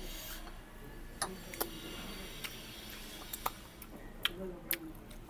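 Eating at a table: about half a dozen sharp clicks and taps at irregular moments, from cutlery and mouth sounds.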